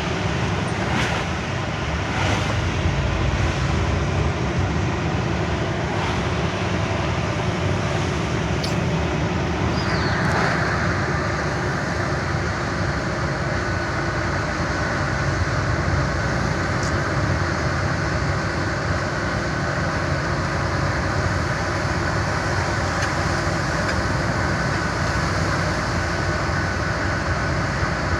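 Truck engine and road noise heard from inside a moving truck's cab: a steady low drone under an even rush of tyre and wind noise, with a few faint clicks in the first seconds and a change in the hiss about ten seconds in.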